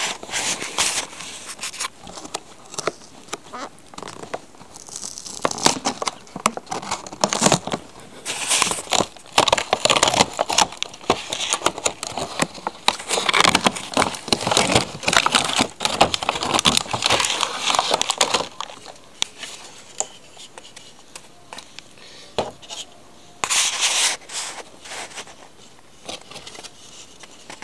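Clear plastic blister packaging crinkling and crackling as it is handled and pulled apart to free a model locomotive. It comes in irregular bursts through most of the first two-thirds, goes quieter, and has one more short burst near the end.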